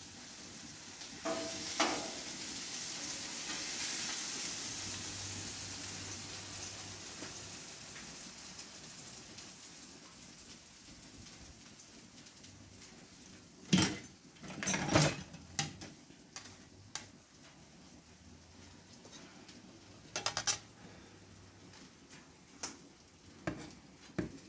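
Smash burger patties sizzling on a hot flat-top griddle, a hiss that swells about a second in and slowly fades. About halfway through, and again twice later, metal spatulas clank and scrape sharply.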